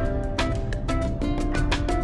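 Background music with a steady beat: held melody notes over regular drum hits.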